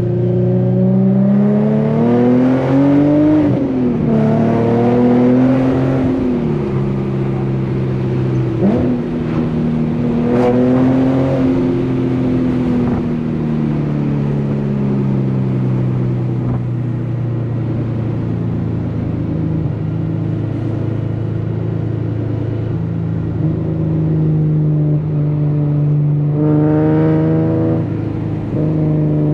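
Infiniti G37's 3.7-litre V6 through an ISR single-exit GT exhaust, accelerating and shifting up: the pitch climbs and drops back several times in the first dozen seconds, then holds steady while cruising, before one more climb and drop near the end. The owner calls this exhaust note one with zero rasp.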